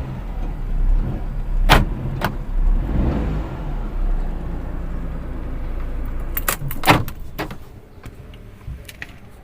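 A low rumble with a handful of sharp clicks and knocks. The loudest knock comes about seven seconds in, and the rumble fades over the last couple of seconds.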